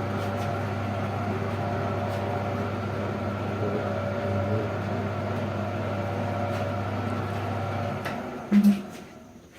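AL960B gear-head metal lathe running, its single-phase motor and spindle gearbox giving a steady hum. About eight seconds in it is switched off and winds down, with a single loud clunk as it stops.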